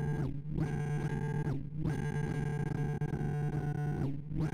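Sorting-algorithm sonification: a buzzy synthesized tone whose pitch follows the array values being compared and swapped by quick sort. It holds low and nearly steady, with a few brief dips in its upper tones.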